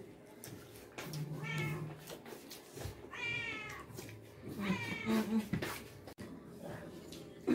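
Domestic cat meowing three times, each call a drawn-out rise and fall in pitch.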